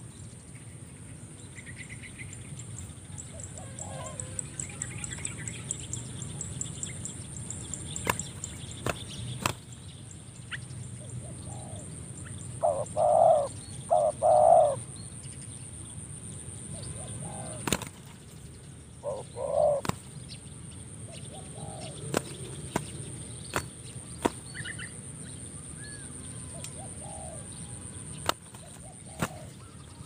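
Spotted doves cooing: two loud bouts of low, throaty coos about halfway through and softer coos here and there, with a few sharp wing slaps and flaps as the birds spar. Faint chirps of small birds can be heard underneath.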